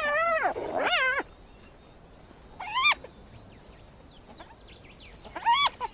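Spotted hyenas calling: four short, high-pitched calls whose pitch wavers up and down, two in quick succession at the start, one near the middle and one near the end.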